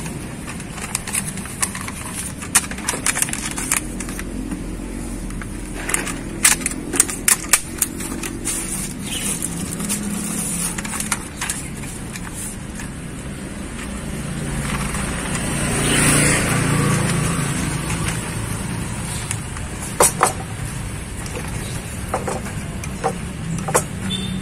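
Sharp clicks, taps and scrapes of a utensil on ceramic plates in scattered clusters as ketoprak is plated and scraped into a paper wrapper. A motor vehicle passes on the street, its noise swelling to a peak about sixteen seconds in and fading.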